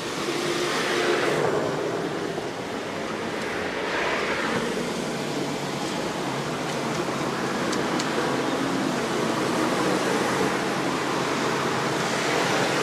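Street traffic going by: a steady rush of car tyres and engines, swelling as vehicles pass about a second in and again about four seconds in.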